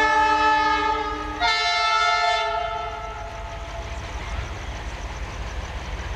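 ALCO diesel locomotive's two-tone horn sounding on an approaching train: a lower note, then a higher one about a second and a half in, dying away by about four seconds. Under it runs the steady low rumble of the oncoming train.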